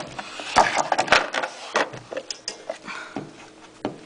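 Plastic anatomical skull models being handled: a run of short clicks, knocks and rubbing, busiest in the first second and a half and thinning out toward the end.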